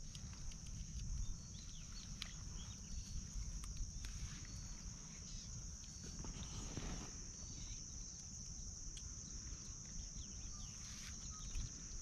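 Steady high-pitched insect chirring from the grass, over a low rumble of wind on the microphone.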